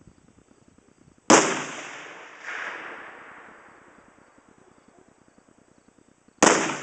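Two rifle shots about five seconds apart, one from a Remington XR-100 in .204 Ruger and one from a target Ruger Mini-14 in .223, fired in turn. Each crack is sudden and dies away slowly, with a weaker echo returning about a second after the first.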